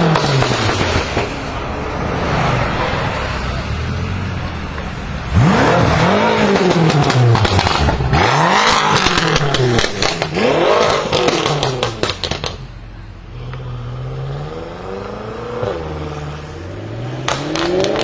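Tuned BMW M5 F10's twin-turbo V8 with catless downpipes being revved again and again, each rev climbing and dropping within about a second, with crackles and pops on the overrun. After about twelve seconds it goes quieter, with slower, gentler revs.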